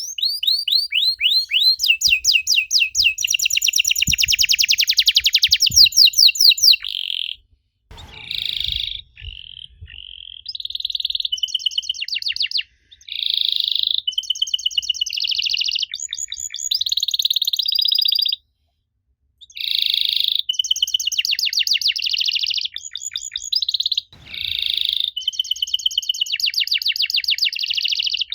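Domestic canary singing: high-pitched trills of fast repeated notes in phrases broken by short pauses, with a silence of about a second just past the middle.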